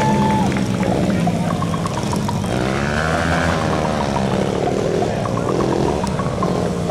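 Several 125cc speedway motorcycles running on a dirt track, their engines revving up and down.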